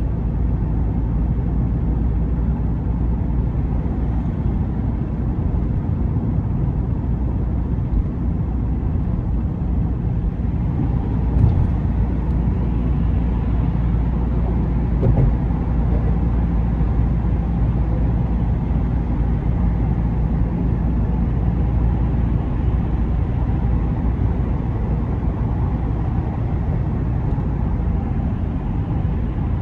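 A car being driven: a steady low rumble of engine and tyre noise, with two brief thumps, about eleven and fifteen seconds in.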